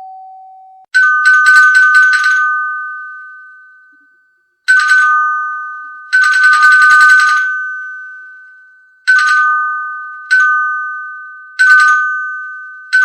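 A bell rung again and again, about seven times: each ring is a quick rattling run of strikes, a couple of them over a second long, leaving a clear two-note ring that fades slowly.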